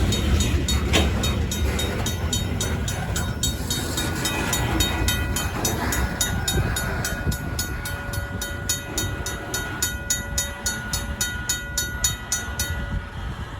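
A RACO mechanical crossing bell rings steadily at about three strikes a second over the low rumble of a slow-moving Union Pacific local freight train. The bell stops near the end while the train's rumble goes on.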